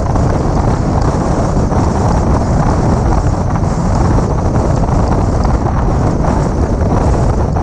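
Steady, loud wind rush on a hood-mounted microphone on a 2006 Mini Cooper S driving at a constant pace, with low road and engine noise underneath.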